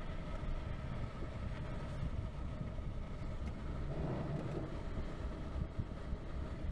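Steady low road-and-tyre rumble inside the cabin of a Fiat 500e electric car rolling slowly along a street, with a brief swell about four seconds in.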